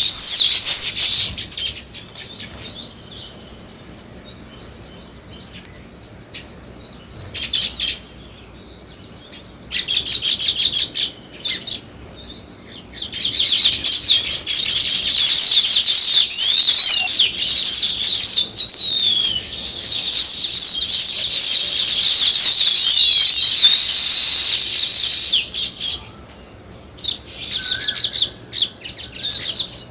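Weaver birds chattering in bursts of rapid, high chirps mixed with short sliding notes. Short bursts come at the start and a few seconds apart, then a long unbroken spell of about twelve seconds in the middle, with quieter gaps between.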